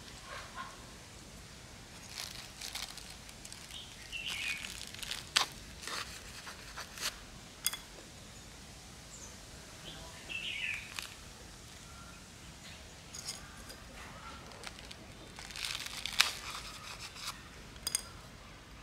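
Plastic bag liner crinkling and potting soil crumbling in irregular bursts, with a few sharp clicks, as hands press the soil and push water spinach cuttings through the holes of a plastic basket.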